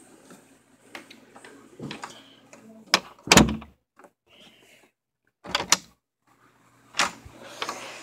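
Several sharp knocks and bumps. The loudest comes a little past three seconds in, a quick cluster follows about two seconds later, and a last one comes near the end.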